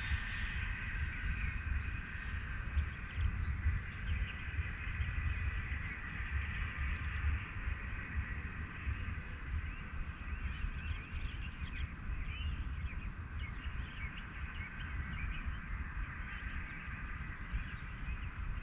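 Small 6S toothpick FPV quadcopter with 2004-size 1800kv brushless motors and 75 mm props whining as it flies, the whine shifting up and down with throttle, over a low rumble.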